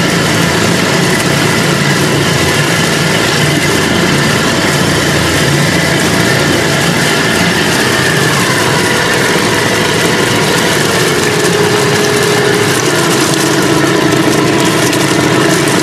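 Homemade electric outboard, a permanent-magnet DC motor driving the leg and propeller of an old Suzuki 5 hp outboard, running under power in a water-filled test bin. A steady motor whine sits over the rush of churning, splashing water. The whine's pitch steps down slightly a couple of times in the second half.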